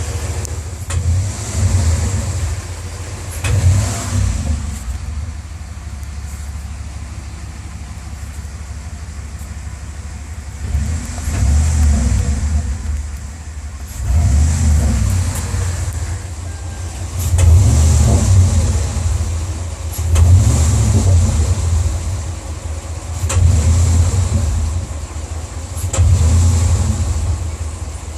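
Car engine running and revved about eight times in a row, dropping back toward idle between revs. A loud knock sounds just before the revs rise, the symptom being shown.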